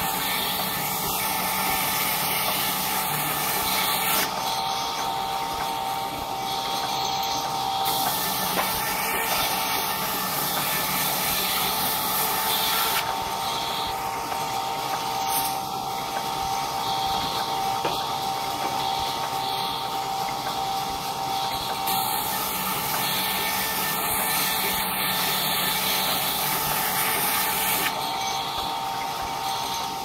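Sawmill's power saw running steadily with a constant whine while a wooden plank is fed through it. The hissy cutting noise grows and eases every few seconds as the plank passes the blade.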